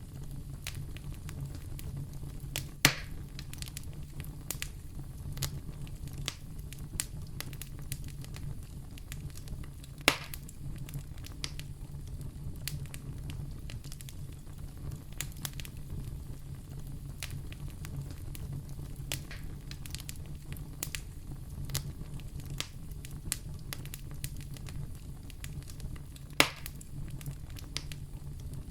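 Wood fire burning in a fireplace: a steady low rumble of the flames with many small crackles scattered throughout, and three louder sharp pops, about three seconds in, about ten seconds in, and near the end.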